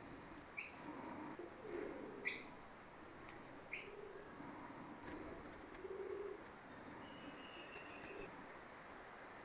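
Faint bird calls: three short, high chirps about a second and a half apart, with low calls in between, and a thin high whistle held for about a second near the end.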